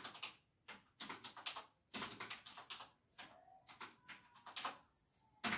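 Faint clicking of a computer keyboard being typed on, in irregular runs of keystrokes, with one louder strike near the end.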